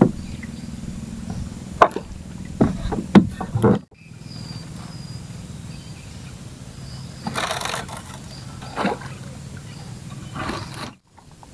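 Sharp knocks and rustles of fishing line and gear being handled in a wooden boat over a steady low rumble. The loudest knocks fall in the first few seconds.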